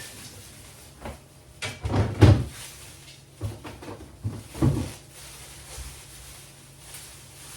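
A handful of knocks and thuds as groceries are handled and set into a refrigerator, with a door or drawer opening or closing; the loudest bump comes about two seconds in.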